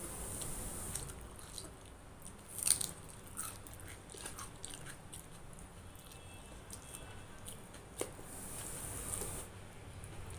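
A person chewing mouthfuls of rice and curry, wet chewing with scattered mouth clicks. A louder cluster of clicks comes between two and three seconds in, and a single sharp click about eight seconds in.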